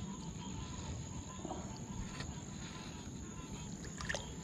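Crickets trilling in one steady high tone, over low rustling and a few faint clicks.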